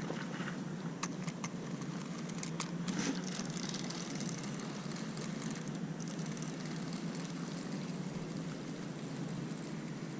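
Steady low background rumble, like distant city traffic, with a few sharp clicks in the first three seconds.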